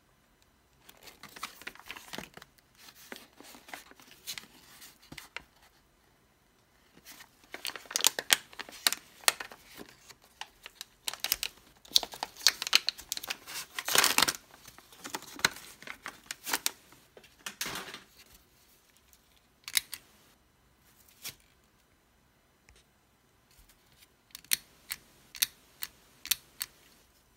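Paper-and-plastic product pouch being torn open and crinkled by hand, in irregular bursts of tearing and rustling that are densest about halfway through. Near the end come a few short, sharp plastic clicks as the corner rounder punch is handled.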